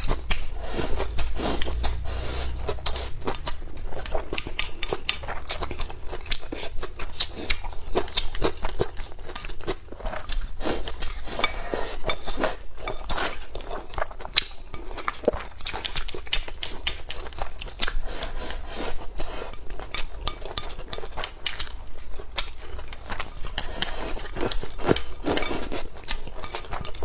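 Close-miked eating: chewing and biting mouthfuls of rice and braised pork trotter, with wooden chopsticks clicking and scraping against a ceramic bowl. Many short clicks follow one another without pause.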